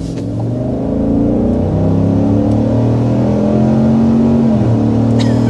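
The 6.2-litre V8 of a 2024 GMC Sierra Denali Ultimate at full-throttle acceleration, heard from inside the cabin. The engine note climbs in pitch, then dips about four and a half seconds in as the 10-speed automatic shifts up.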